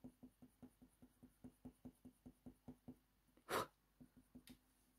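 Faint, quick taps and scratches of a Faber-Castell Polychromos coloured pencil making short strokes on hot-press watercolour paper, about five a second. The strokes pause briefly, with one louder rustle about three and a half seconds in, then pick up again.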